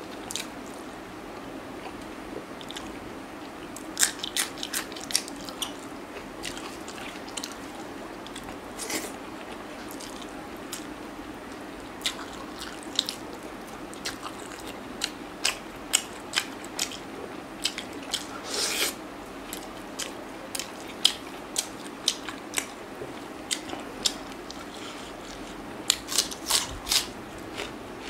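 Close-miked mouth sounds of a person eating chicken and rice: irregular wet clicks, smacks and small crunches of chewing and biting, coming in clusters, over a steady faint hum.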